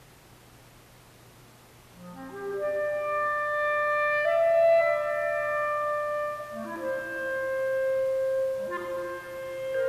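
Unaccompanied clarinet: after a pause of about two seconds it enters with a quick rising run into a held high note, then plays two more short rising figures, each leading into a long sustained note.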